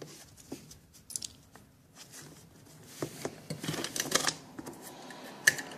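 Hands fitting a cable connector nut and working electrical cable into a dishwasher's metal junction box: scattered rustling, scraping and small clicks, busiest in the middle, with a sharper click near the end.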